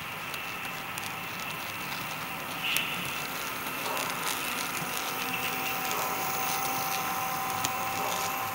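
Model diesel locomotives pulling a double-stack container train past on a model railroad, the wheels clicking irregularly over the track, with a steady whine throughout.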